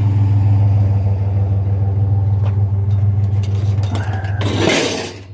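Truck engine running steadily with a low, even hum. Near the end a short burst of hiss rises over it.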